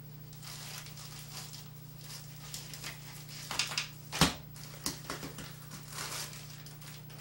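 Clear plastic food bags crinkling and rustling in the hands as food is packed into them, in short irregular crackles, with one sharp knock about four seconds in.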